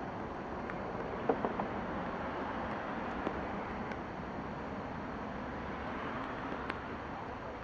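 Steady outdoor background noise, an even rush and hiss with no clear engine note, with a few faint clicks about a second and a half in.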